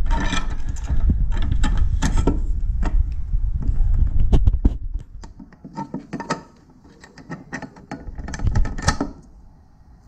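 A metal load-spreading leg and its bolt being slid onto a bracket and fitted by hand: a run of metallic clicks, taps and scrapes, busier in the first half and again near the end. A low rumble underneath stops about five seconds in.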